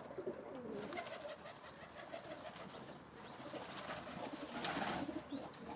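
Domestic pigeons cooing: several low, wavering coos overlapping. A short rustle comes about three-quarters of the way through.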